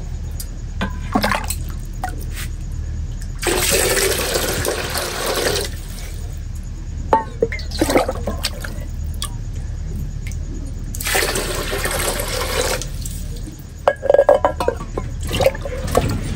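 Water scooped with a metal mug from a clay water pot and poured out twice, each pour splashing for about two seconds, with small knocks and clinks of the mug between.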